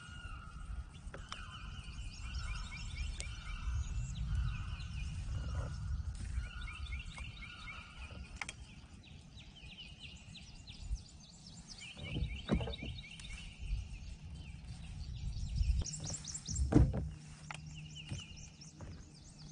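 Swamp birds singing in many short, repeated trilled phrases over a low rumble, with a couple of sharp knocks about two-thirds of the way through and near the end.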